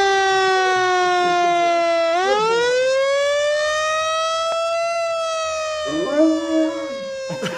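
Recorded fire-engine siren played over studio loudspeakers, wailing: its pitch sinks, climbs steeply for about three seconds from just past two seconds in, then slowly falls again. A Dogo Argentino howls along with it near the end.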